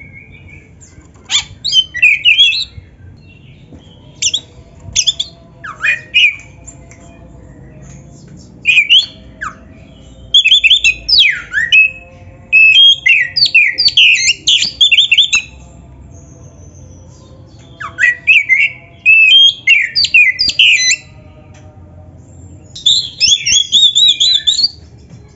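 Oriental magpie-robin (kacer) singing in loud bursts of rapid, varied whistles and harsh chattering notes, in phrases of one to several seconds with short pauses between them.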